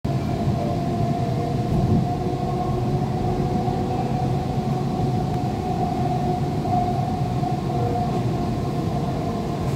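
Kolkata Metro East-West line train running at speed on an elevated track, heard from inside the carriage: a steady rumble of the wheels on the rails with a steady whine held at one pitch.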